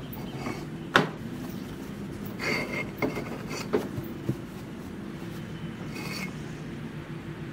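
Knocks and scrapes of concrete cinder blocks and wooden boards being shifted out from under a car to lower it, with one sharp knock about a second in and lighter knocks a couple of seconds later. Dry leaves rustle underfoot, over a faint steady hum.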